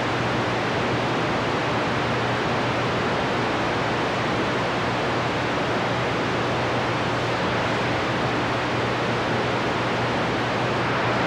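Steady static hiss from a CB radio's speaker in receive, with no station coming through, over a low steady hum.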